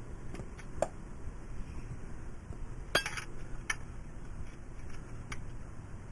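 Metal clinks of a wrench working an oil-pan drain plug loose: a few separate clinks, the loudest and ringing one about three seconds in.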